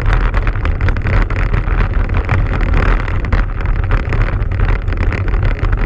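A vehicle running fast along a rocky gravel track, with wind buffeting the microphone. Under it are a steady low rumble and a constant clatter of small knocks from the loose stones.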